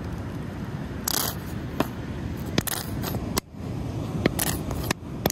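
Steady wind rumble on the microphone, with a string of light clicks and taps and two short scrapes from handling bottles and utensils while mixing a dipping sauce.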